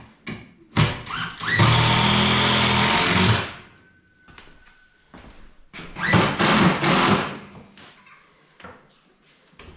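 Power drill running in two bursts, one of about two seconds and a shorter one about a second long, with knocks and clicks of handling between.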